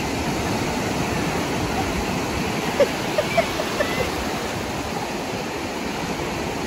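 Sea surf breaking and washing through the shallows: a steady rush of water. A few short, sharp sounds stand out around three seconds in.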